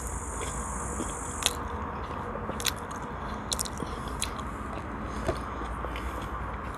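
Chewing a mouthful of herring with onion, with scattered small wet mouth clicks and crunches, over a faint steady low rumble.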